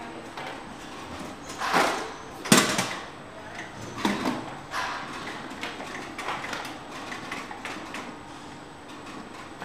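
Aasted biscuit packaging line running, with a steady machine background and the pneumatic gates of its hoppers clacking open and shut as they drop biscuits into the trays. The loudest clack comes about two and a half seconds in, with several smaller ones after it.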